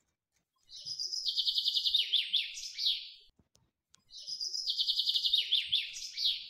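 A small songbird singing the same phrase twice: a fast, high trill that ends in a few quick falling notes.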